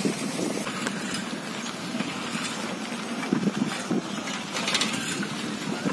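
Steady rushing road and wind noise while riding along, with a few faint knocks about three and a half seconds in.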